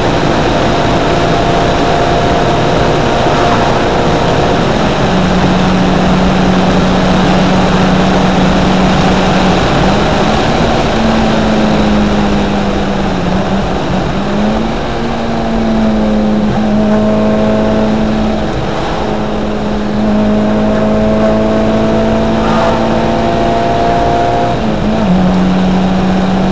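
Toyota 4A-GE 20-valve twin-cam four-cylinder engine droning steadily at highway speed, heard from inside the car over wind and road noise. Its pitch dips and climbs a little a few times as the throttle changes.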